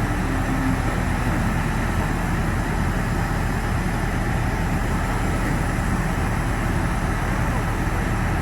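Steady engine noise running without change: a low hum with a faint, high steady whine above it.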